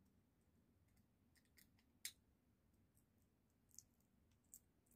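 Faint, sharp clicks of roasted sunflower seed shells being cracked and peeled apart by fingers, about five small cracks, the loudest about two seconds in. The shells are hard to split: "not easy to peel".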